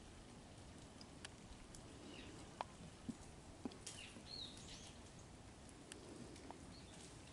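Faint outdoor quiet with a few scattered light ticks and a couple of brief, high small-bird chirps in the middle.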